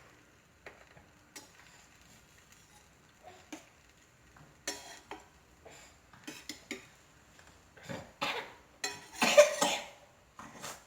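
Scattered light knocks and scrapes of a utensil against an iron tava while a stuffed paratha cooks, with a cough near the end.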